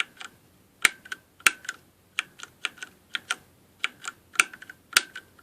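Keys of a mechanical keyboard with Cherry MX Brown switches pressed one after another at a slight angle, giving about twenty sharp, irregular clacks. This is a test of a sticking R key that needs several times more force than the other keys when pressed off-centre.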